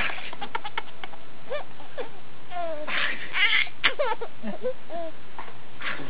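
Baby giggling and squealing in short bursts, with rising and falling high-pitched coos. About three seconds in there is a short breathy burst, the loudest sound.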